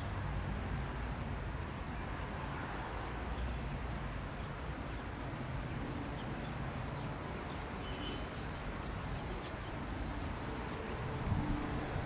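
Diamond DA42 Twin Star's two diesel piston engines and propellers at takeoff power, a steady distant low drone during the takeoff roll. It grows louder about 11 seconds in as the aircraft lifts off.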